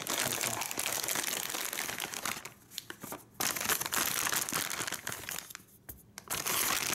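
Plastic packaging pouch crinkling as a hand rummages inside it and pulls items out. It comes in three spells, with two short pauses.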